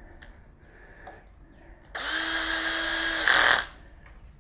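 Cordless power drill-driver running once for about a second and a half, starting about two seconds in, with a steady motor whine that gets louder near the end, driving in the handlebar clamp bolts.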